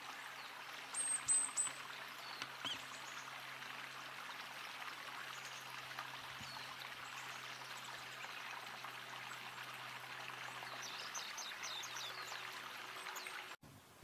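Steady rushing of a flowing stream, with a few high, thin bird calls about a second in and a quick series of short high calls near the end.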